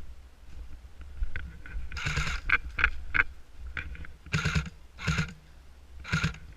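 Footsteps crunching through the forest floor litter, about seven uneven steps from about two seconds in, over a steady low rumble.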